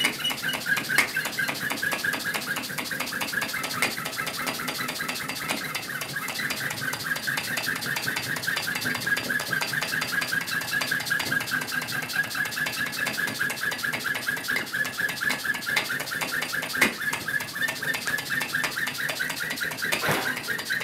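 Handmade glass model steam engine running at speed: a rapid, even ticking from its moving parts with a steady, wavering high squeak over it. Two short, louder rushes of noise come near the end.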